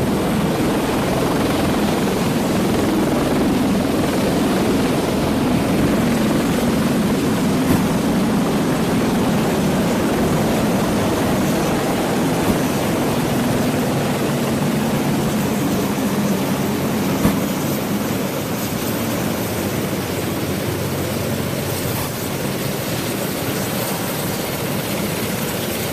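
CH-53E Super Stallion heavy-lift helicopter's rotors and three turboshaft engines running steadily as it hovers and flies off with a cargo load slung beneath it; the sound eases a little past the middle.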